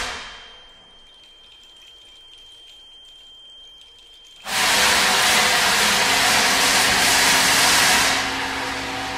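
Contemporary chamber music for voice, bassoon, accordion and percussion played as noise rather than notes. A struck sound dies away at the start, followed by a quiet stretch with a faint high steady tone. About four and a half seconds in, a sudden loud rushing hiss, like air or water, sets in, holds for about three seconds, then eases.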